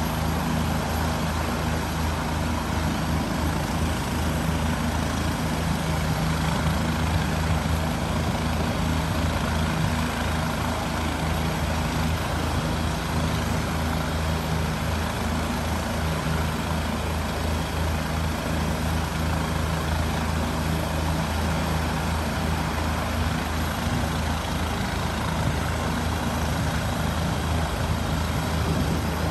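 Medical helicopter's turbine engine and rotor running steadily on the ground before takeoff, a constant rush over a low steady hum.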